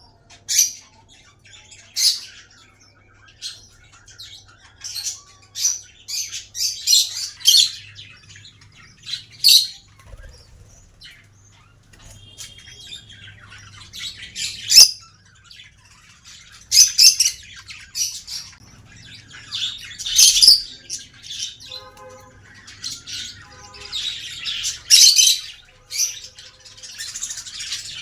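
Small pet parrots chirping and squawking in many quick, high-pitched calls, with a faint steady hum beneath.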